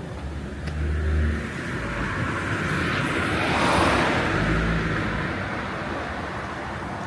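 A car driving past: engine and tyre noise building to a peak about four seconds in, then fading away.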